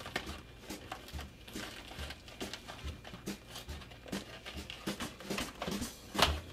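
Small cardboard pie box being pried and torn open by hand: scattered crinkles, scrapes and small knocks, with one sharper, louder crack near the end.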